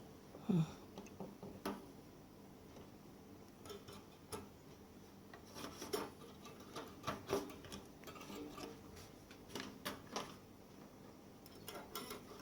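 Faint, irregular clicks and taps of small hard objects being handled: lithium cells from a power bank and multimeter test probes being set against them to measure each cell's voltage.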